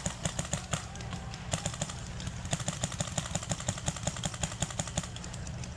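Paintball markers firing fast strings of shots, several guns at once, popping many times a second. The firing stops about five seconds in.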